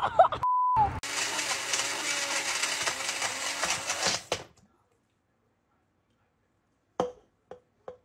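A short censor beep, then a small personal blender running for about three seconds before cutting off abruptly. After a silence, a hard object hits and bounces several times with a ringing tone, the bounces coming quicker and quicker.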